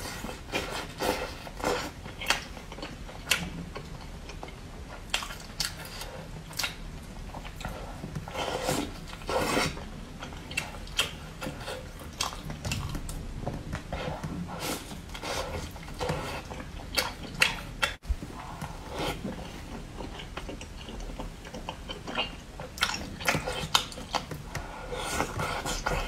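Close-up wet chewing and biting of soft, broth-soaked food, with frequent short smacking mouth clicks throughout and the odd light clink of chopsticks or dishes.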